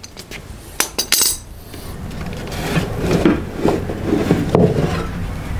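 Lotus Elise composite crash box and its alignment clamps being handled as the box is unclamped and taken off the aluminium chassis: a few sharp clicks about a second in, then scraping and irregular knocks that grow louder.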